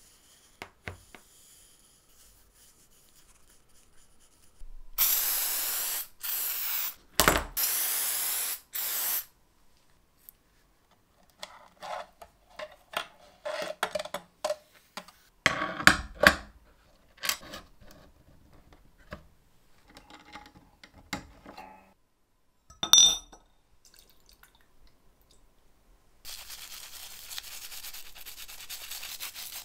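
A run of small workshop sounds: a spray hissing in four loud bursts, then light taps, clicks and rubbing of metal parts with one ringing clink, and near the end a toothbrush scrubbing a small metal part in a glass bowl of liquid.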